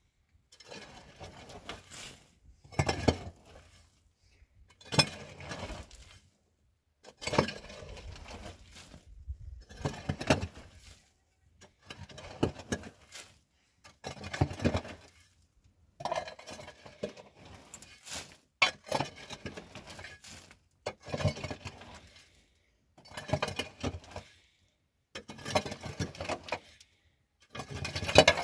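Short bursts of clattering and clinking, like household objects being handled, about one every two seconds with brief pauses in between.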